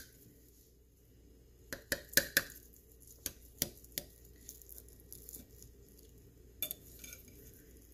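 Table knife cutting a slice of quiche on a ceramic plate, clicking and clinking against the plate and the crisp rice crust. The clicks come in a quick cluster about two seconds in, then a few more, then one near the end.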